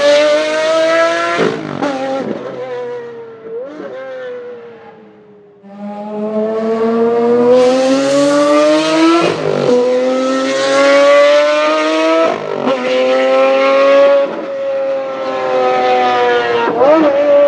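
Maserati MC12 Corsa's 6.0-litre V12 racing engine accelerating hard, its pitch climbing through the gears with quick upshifts about a second and a half in and then about every three seconds later. It fades away briefly around five seconds in, then comes back loud and climbs again.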